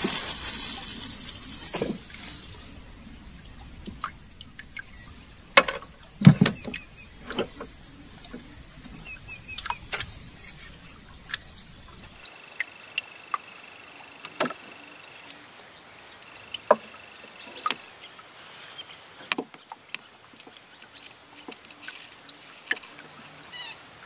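Steady high-pitched drone of insects, with scattered sharp clicks and knocks throughout, the loudest a few seconds in. About halfway the low background rumble drops away suddenly.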